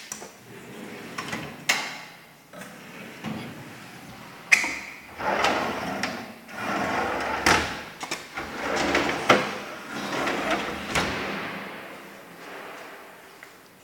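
Kitchen cabinet drawers sliding open and shut several times: a rushing slide on the runners, with about five sharp knocks as the drawers hit their stops.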